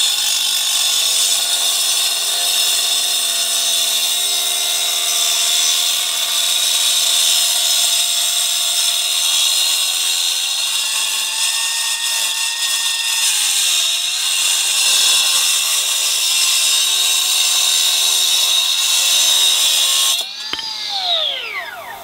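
Milwaukee M18 Fuel 9-inch cordless cutoff saw with its stock segmented diamond blade cutting wet through a concrete paver: a steady high-pitched whine with a gritty grinding hiss. Near the end the trigger is released and the blade spins down, its whine falling away.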